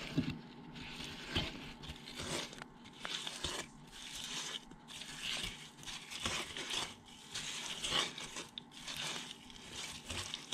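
Silicone spatula stirring diced strawberries and sugar in a nonstick pot, irregular wet scraping strokes, while the sugar dissolves over medium-low heat.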